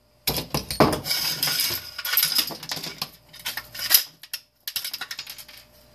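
Small metal and plastic parts of a space heater clinking and clattering as they are handled and pulled apart, with a pause and then a quick run of sharp clicks near the end.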